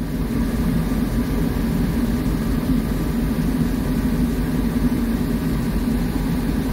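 Diesel locomotive engine idling, a steady low drone heard inside the cab.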